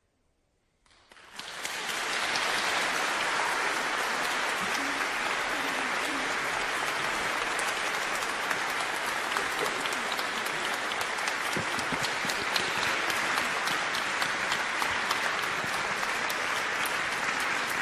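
Concert-hall audience applauding, a dense, steady clapping that starts suddenly about a second in after a brief silence.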